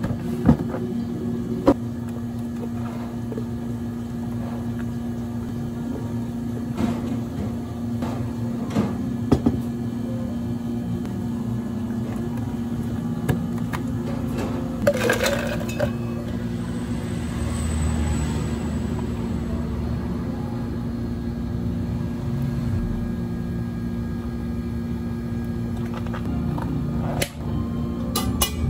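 Steady low hum of café equipment, with scattered clicks and knocks of a plastic blender jar, cup and lid being handled on a counter and a louder clatter about halfway through.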